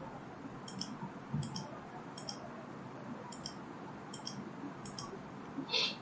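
Computer mouse clicking at irregular intervals, often as quick press-and-release pairs, as connections are placed one after another. Near the end there is a brief, louder rustling noise.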